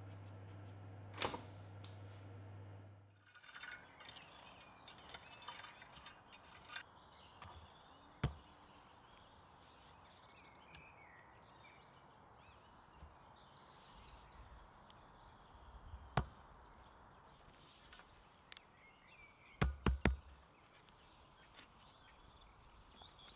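A steady low hum from an electric oven for the first three seconds, then birds chirping outdoors. Over the birdsong come a few sharp knocks: single ones at intervals, then three in quick succession near the end.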